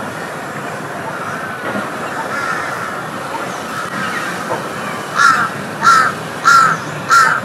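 A crow cawing four times in quick succession, harsh calls a little over half a second apart, about five seconds in, over steady background noise with faint chirps.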